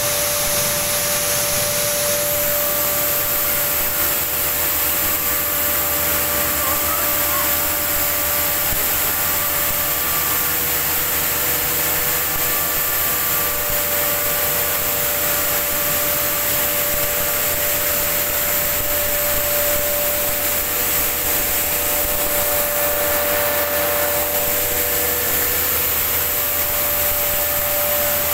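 Electric atta chakki (flour mill) with its cyclone system running while grinding wheat into flour: a steady, loud machine whirr with a constant whine.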